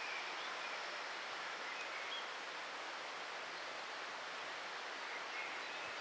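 Steady outdoor background noise, an even hiss like wind and rustling, with a few faint short high chirps.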